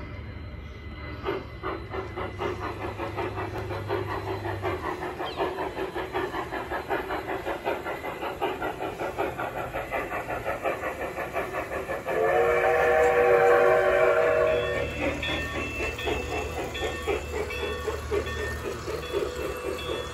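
Large-scale model trains running on garden-railway track with a steady rhythmic clatter. A model steam locomotive's whistle sounds for about two and a half seconds, starting about twelve seconds in; this is the loudest sound.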